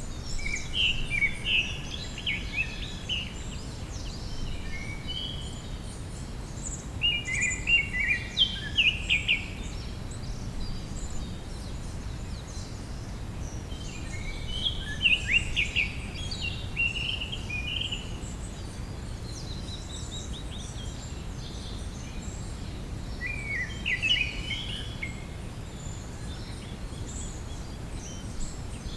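A songbird singing short, quick phrases of high chirping notes four times, roughly every seven or eight seconds, over a steady low background rush.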